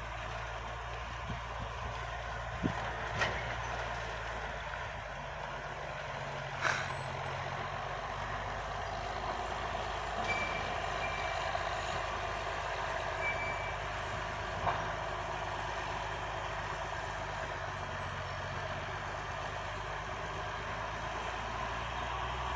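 Bucyrus cable dragline's diesel engine running steadily as it works its bucket, with a few sharp knocks, the loudest about three and seven seconds in.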